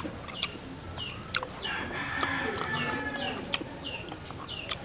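A rooster crowing once in the background, a held call starting about one and a half seconds in and lasting over a second. Repeated short high chirps falling in pitch run throughout, with a few sharp clicks.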